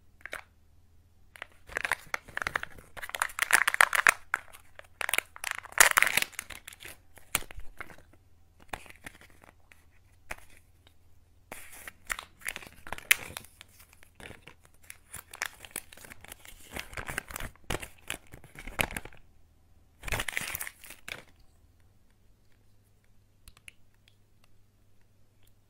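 Kinder Joy egg being unwrapped by hand: the foil seal peeled off the plastic egg half and a small plastic wrapper torn open, crinkling and tearing in bursts. In the last few seconds it goes quieter, with faint clicks of a small plastic toy being handled.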